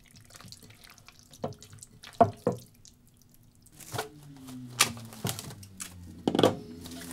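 Hands squishing chicken pieces through a thick yogurt marinade in a glass bowl, giving a few wet squelches. About four seconds in, cling film is pulled off its roll and crinkled over the bowl, with a run of crackling clicks.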